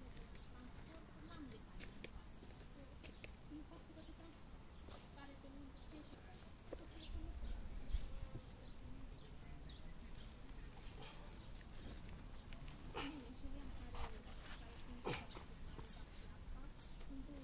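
Cricket-like insect chirping: a series of short high-pitched chirps repeating about twice a second. Scattered soft clicks and thumps come through it, the loudest about eight seconds in.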